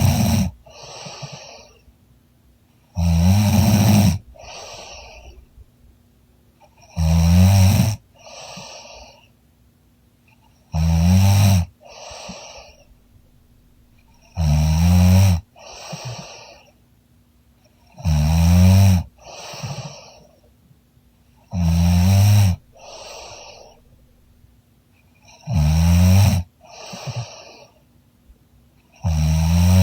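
A woman snoring loudly in deep sleep. Each loud snore is followed by a softer, shorter breath sound, in a steady rhythm of one snore about every three and a half to four seconds, eight or nine times.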